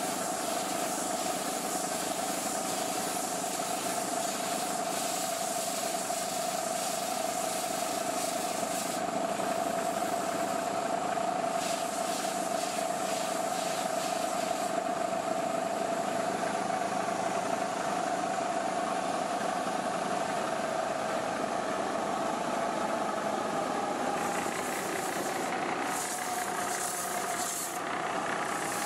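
Long belt sander running with a steady hum, a wooden axe handle pressed against the abrasive belt and rasping as it is sanded.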